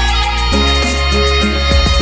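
Instrumental background music with a steady beat over a sustained bass.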